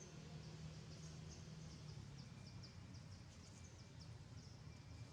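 Faint outdoor ambience: a quick series of short high chirps, about three a second, over a low steady hum.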